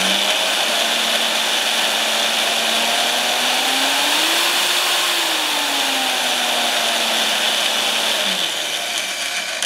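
Bauer portable bandsaw's electric motor running under an add-on variable speed control, a steady whine with a hiss. The pitch rises toward the middle and falls back as the speed is turned up and down.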